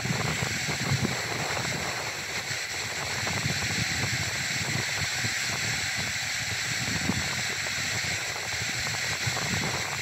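Wind buffeting the microphone in irregular low gusts over a steady outdoor hiss.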